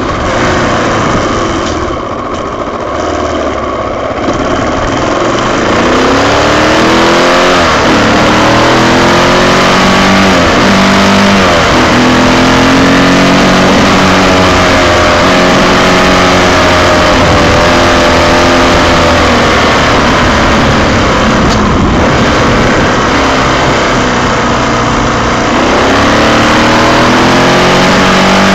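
Honda XR600 single-cylinder four-stroke engine heard from on board while riding. It runs softer for the first few seconds, then pulls up through the gears with rising revs broken by shifts, and holds a steady cruise. The revs drop and climb again near the end.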